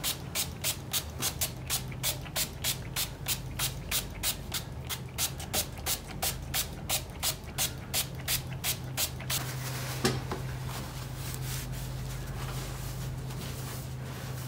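Small pump spray bottle of betadine mixed with alcohol squirted again and again onto a cat's fur, a quick even run of about four short sprays a second that stops about nine seconds in. This is the skin being disinfected before neutering surgery.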